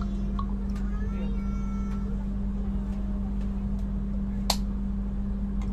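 Steady low hum inside a passenger train carriage, with faint voices in the background. A single sharp click comes about four and a half seconds in.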